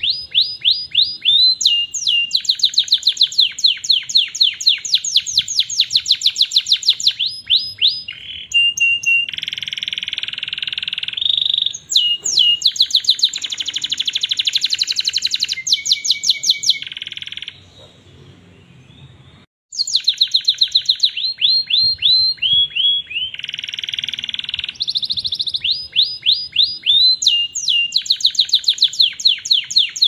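Domestic canary singing a long, loud song of rapid rolling trills, fast runs of repeated falling notes, phrase after phrase, broken once by a pause of about two seconds just past the middle.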